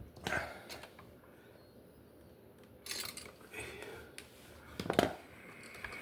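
Small metal clicks and scrapes of hand tools and wire being worked on an electrical receptacle as a wire is fitted under its terminal screw. There are a few sharp clicks, the loudest about five seconds in.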